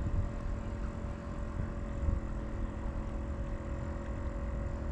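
Steady mechanical hum of a motor, with several steady tones over a low rumble.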